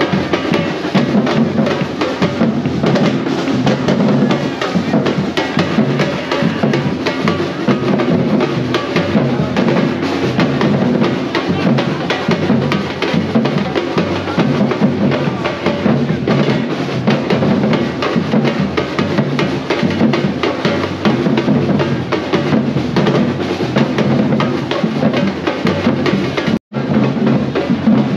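Drum-led percussion music playing continuously with many quick hits, cutting out for an instant near the end.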